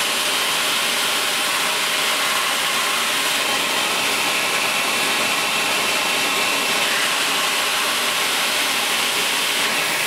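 Steady rush of air from a blower-type electric motor, with a faint high whine in the middle.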